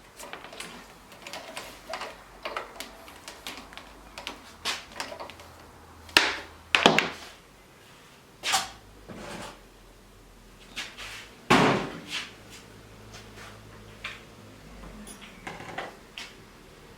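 Irregular knocks and clunks of hard objects being handled, with a few louder thuds about six, seven, eight and a half and eleven and a half seconds in.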